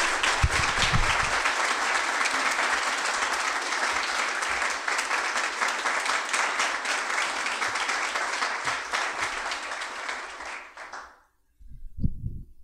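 Audience applauding steadily, a dense patter of many hands clapping, which dies away about eleven seconds in. A couple of low thumps follow near the end.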